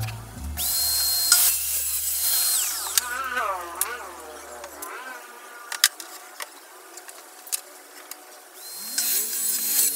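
Circular saw on a guide rail spinning up to a steady high whine, making a short cut through laminated board, then winding down. Near the end a power tool spins up to the same kind of whine again.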